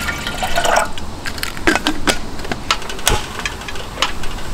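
Water poured from a plastic bottle into a small stainless steel kettle, the filling sound lasting about a second. It is followed by a series of sharp clicks and knocks as the bottle and kettle are handled and set on the portable gas burner.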